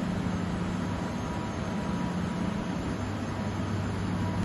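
Steady machinery hum of a factory hall full of machine tools: a low hum with a faint high whine over a constant wash of noise.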